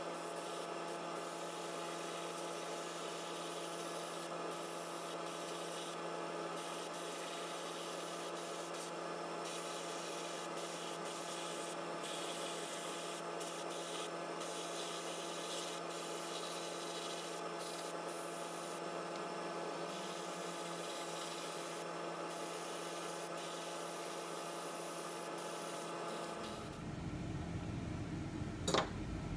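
Airbrush hissing steadily as it sprays paint, with a steady hum underneath. Near the end the sound changes and a single sharp click is heard.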